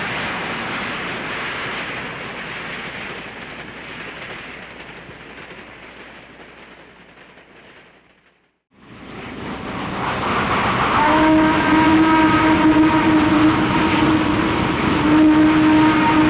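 Dubbed sound of a 2-8-8-4 EM-1 steam locomotive running. Its rushing noise fades away, breaks off briefly about eight seconds in, then builds up again. From about eleven seconds a steady whistle-like tone sounds over it, with one short break.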